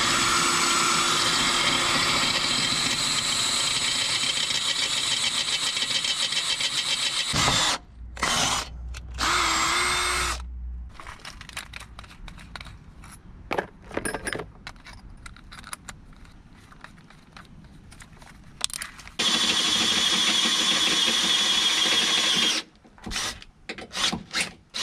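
Cordless drill boring a hole up into a car's steel subframe with a twist bit, running steadily for about seven and a half seconds, then stopping. Short spins and clinks follow while the bit is changed in the chuck, then the drill bores again for about three and a half seconds near the end and ends in a few short bursts.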